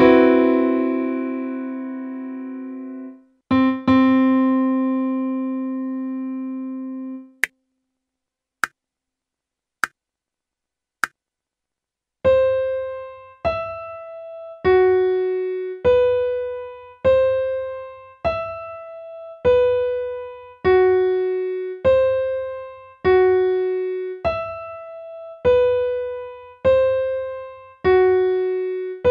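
A piano sounds a C major seventh flat-five chord and lets it ring, then strikes it again. Four short count-in clicks follow, and then single piano notes, about one every 1.2 seconds, step through the chord tones C, E, G-flat and B as a written arpeggio exercise.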